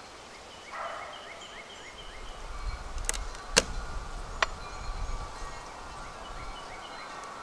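Hive tool prying the inner cover loose on a wooden beehive: three sharp cracks between about three and four and a half seconds in, with a low handling rumble. Birds chirp in the background.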